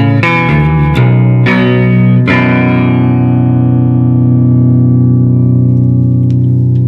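Electric guitar through a Beetronics Tuna Fuzz pedal into a Marshall amp: a quick run of short notes, then a chord struck about two seconds in that rings on, held long by the fuzz's sustain.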